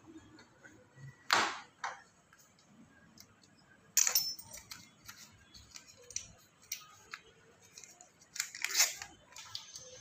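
Hands handling screws and paper while fitting bolts into a front-load washing machine's counterweight: a few short clicks and rustles, the loudest about a second in, at about four seconds, and a small cluster near the end, with faint ticks between.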